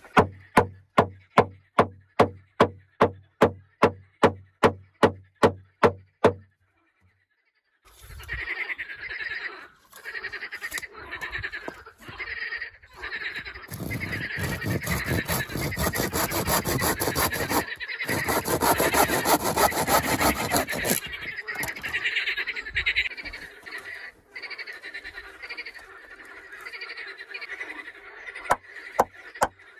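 Regular hammer blows, about three a second, for some six seconds. After a short break comes a handsaw cutting a wooden board in quick back-and-forth strokes, loudest in the middle. Sharp hammer strikes start again near the end.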